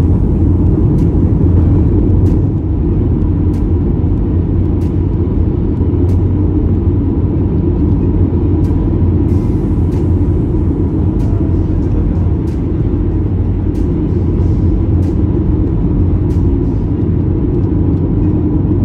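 Steady low road and engine rumble of a car at highway speed, heard from inside the cabin, with faint light clicks now and then.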